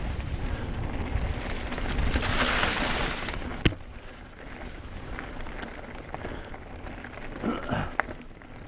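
Mountain bike riding down a loose, rocky trail: steady tyre and wind noise, louder for a second or so about two seconds in, with one sharp knock just before four seconds in.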